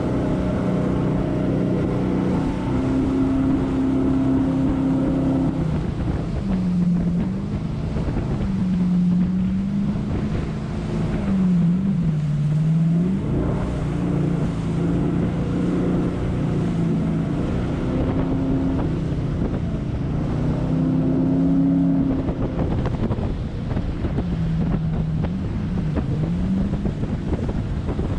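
Jet boat engine running under way, its pitch dipping and coming back up several times as the throttle is eased and reopened through the rapids. Wind buffets the microphone throughout.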